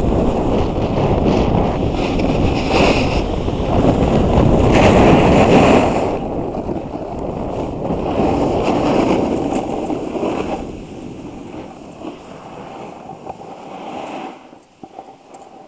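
Wind rushing over a body-worn camera's microphone as a snowboarder rides down a groomed run, mixed with the hiss and scrape of the board on the snow. The rush is loudest in the first six seconds and dies down over the second half as the rider slows.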